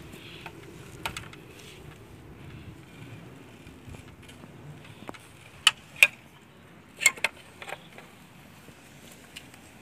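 Handling noise from working a fiber drop cable at a plastic terminal box: scattered sharp clicks and taps, the loudest a pair about six seconds in and another pair about seven seconds in, over faint steady background noise.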